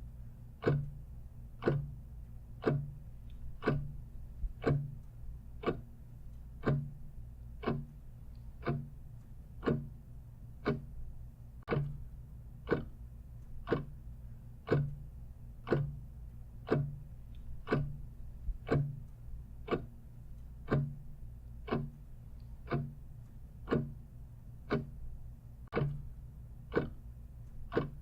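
Clock ticking steadily, one even tick about every second.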